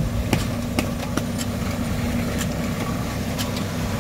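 Tractor engine running steadily while pulling a garlic planter through a field, with scattered sharp clicks and rattles from the planter's mechanism a few times a second.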